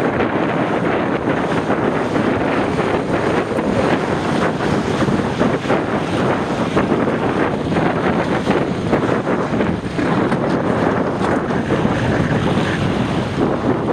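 Strong wind buffeting the microphone over the continuous rush and splash of water along a Fireball sailing dinghy's hull as it sails in strong, gusty wind.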